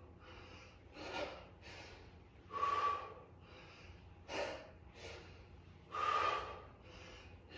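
A man breathing hard with each crunch: a sharp, rushing exhale about every one and a half seconds, with softer inhales between.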